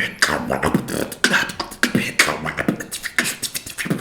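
Beatboxing freestyle: a fast, steady rhythm of mouth-made drum sounds, sharp hits with hissing sounds between them.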